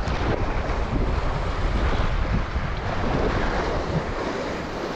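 Wind buffeting the microphone over the wash of the sea.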